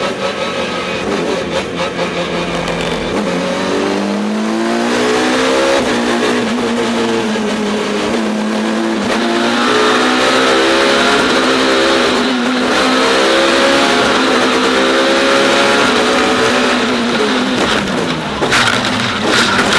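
Touring race car engine heard onboard, revving and climbing in pitch again and again as it accelerates through the gears, over steady road and wind noise. Near the end the noise grows louder and brighter.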